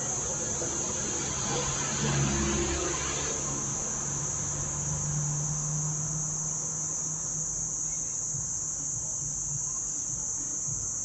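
Crickets trilling steadily at a high pitch, with a faint low hum beneath that swells briefly a couple of seconds in.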